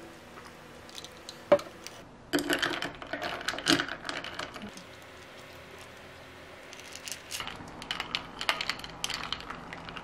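Ice cubes clinking and rattling in a glass of iced latte as it is handled and sipped through a straw: a single sharp clink about a second and a half in, then two spells of clinking, one around two to four seconds in and another near the end.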